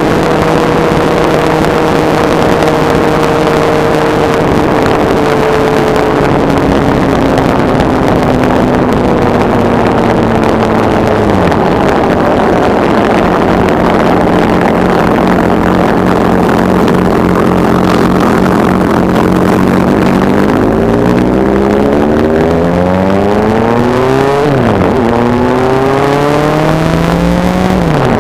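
Kawasaki Z750 inline-four engine and its aftermarket Ixil stainless conical silencer under way, with wind rush: the revs hold steady and ease off, dropping about 11 seconds in. From about 20 seconds in the engine revs up hard, pitch climbing, with two quick drops at upshifts near the end.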